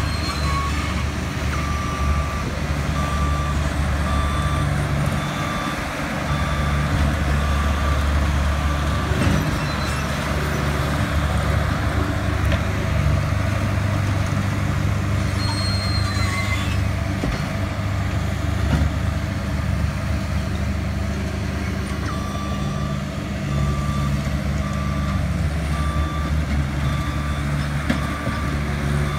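Bobcat T190 compact track loader's engine running steadily, with its backup alarm beeping in a regular on-off pattern as it reverses, for a stretch starting about a second in and again in the last several seconds.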